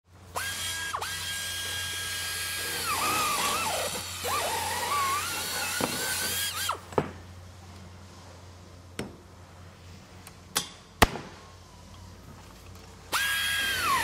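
Power drill running with a high whine, its pitch dipping and wavering as it works into the material. It cuts out briefly about four seconds in and winds down near seven seconds. A few sharp knocks follow in a quieter stretch, and the drill starts up again near the end.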